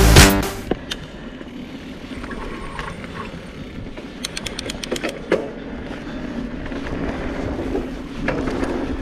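A 2019 Specialized Turbo Levo electric mountain bike riding a dirt trail: steady tyre-on-dirt rolling noise with rattles from the bike over bumps. A cluster of sharp clicks and knocks comes around four to five seconds in.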